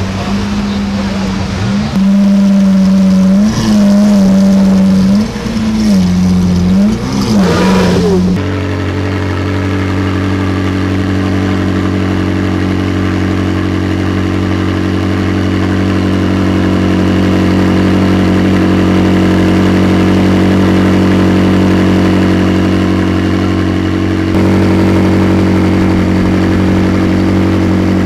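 Lamborghini Aventador V12 with a decat Capristo exhaust idling loudly, with several short throttle blips. About eight seconds in, it gives way to a McLaren 675LT's twin-turbo V8 idling steadily.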